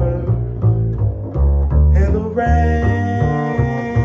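Upright double bass plucked in a steady jazz walking line, its notes changing about twice a second. From about halfway through, a male singer holds one long sung note over it.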